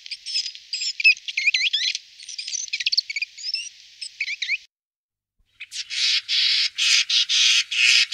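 Marsh tit calling: quick, high chirps and sweeping notes for about four and a half seconds. After a short pause a great tit starts a rapid run of harsh, rasping notes that keeps going.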